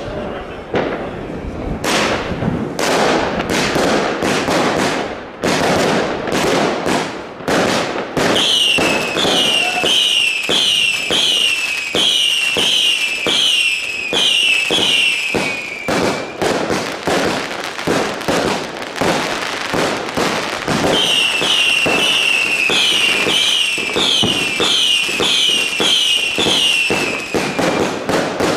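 Fireworks going off in rapid succession: a dense run of bangs and crackles, with two long stretches of whistling shots, each a short falling whistle, about three every two seconds, the first starting about a third of the way in and the second about two-thirds in. Shells bursting overhead.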